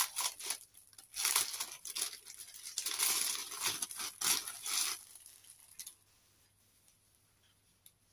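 Clear plastic packaging bag crinkling and rustling in irregular bursts as a folded piece of fabric is pulled out of it, for about the first five seconds.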